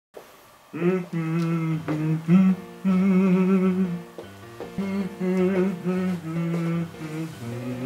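A voice humming a wordless melody in held, wavering notes.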